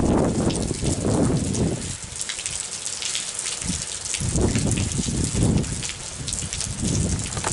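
Heavy rain pouring down in a thunderstorm, a continuous hiss with uneven low rumbling surges rising and falling every second or so.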